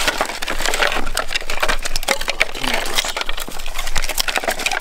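Pieces of scrap wood being gathered and handled, knocking and clattering against each other in a dense run of knocks and cracks.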